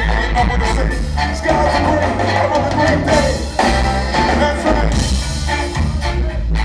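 Live ska band playing, with saxophone and trombone over a steady beat.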